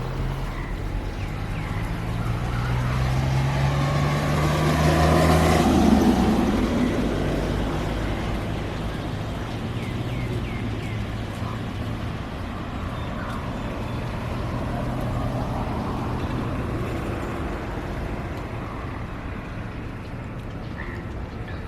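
A motor vehicle passes by, its engine hum rising and loudest about six seconds in, then fading into a steady wash of rain noise.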